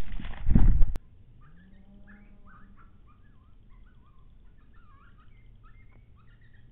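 A loud noisy rush in the aftermath of a suppressed rifle shot, cut off abruptly about a second in. Then faint, scattered bird chirps over a low steady hum.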